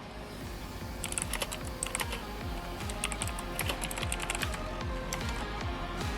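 Typing on a 60% mechanical keyboard with clicky blue switches: quick, irregular key clicks starting about a second in, over background music.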